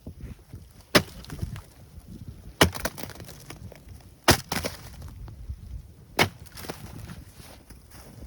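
Small pieces of dry firewood kindling being handled, giving four sharp wooden cracks spaced one and a half to two seconds apart, with softer rustling between them.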